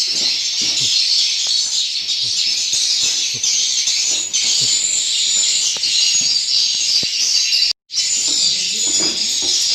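Dense, continuous high-pitched twittering of edible-nest swiftlet calls, with a brief cut to silence near the end.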